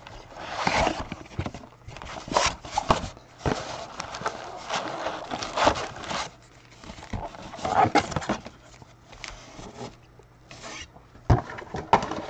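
Cardboard box and card-pack packaging being handled and torn open by hand, in irregular rustling, scraping strokes.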